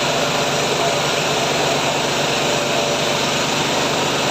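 Mahkota KD550HM mini rice milling machine running, a loud steady mechanical din of the mill at work.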